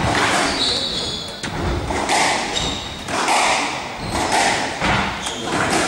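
A squash rally: the ball is struck by rackets and smacks off the court walls roughly once a second, echoing in the hall, with players' shoes squeaking on the court floor between shots.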